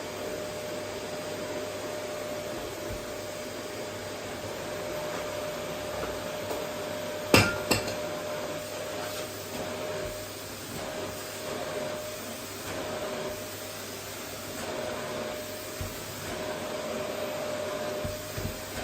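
Vacuum cleaner running steadily over a wooden floor, a constant rushing hum with a mid-pitched whine. About seven seconds in comes a sharp knock, followed a moment later by a smaller one.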